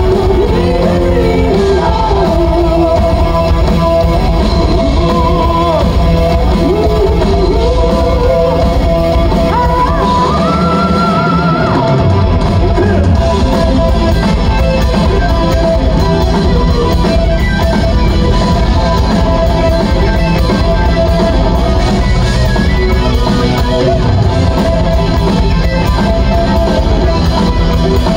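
A live rock band playing loud, steady melodic hard rock with electric guitars, bass, keyboards and drums. A sung vocal line carries roughly the first half, then the band plays on.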